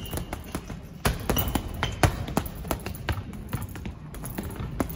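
Boxing gloves striking a hanging heavy punching bag in a fast, uneven run of punches, several thuds a second.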